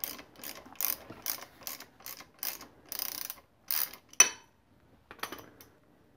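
Ratchet wrench being worked back and forth, about two clicking strokes a second, backing out the 8 mm lower brake-hose support bolt on a motorcycle's front fork. It stops after about four seconds, followed by a sharp ringing metallic clink and a smaller one a second later.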